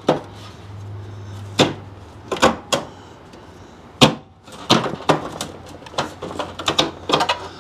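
Irregular sharp knocks and clicks of hands handling a Jeep Wrangler TJ's front grille and its mounting bolts while fitting them into place: a few single knocks in the first four seconds, then a quicker cluster of clicks from about five to seven seconds in. A low hum sits under the first two seconds.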